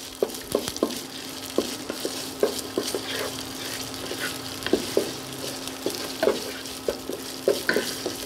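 Galangal (blue ginger) spice paste frying in oil in a pot with a light sizzle, a wooden spatula stirring and scraping through it in irregular strokes. The light, even sizzle is the sign that the pot is at the right heat to cook the paste without browning it.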